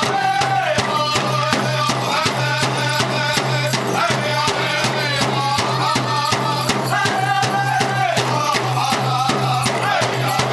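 Powwow drum beaten in a steady, fast beat under a group of singers chanting held, high-pitched lines together, with the shaking rattle of dancers' bells mixed in.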